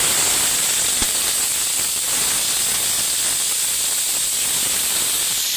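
Julienned vegetable strips frying in hot oil in a steel kadai: a loud, steady sizzle.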